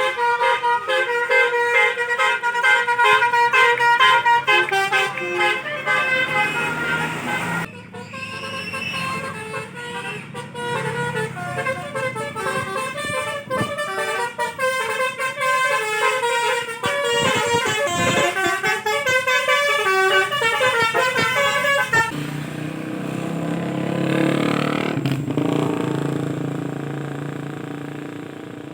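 Telolet basuri multi-tone musical horns on Indonesian tour buses playing tunes: one melody until a sudden cut about eight seconds in, then a second melody until about twenty-two seconds. After that comes a bus's engine noise that swells and then fades away.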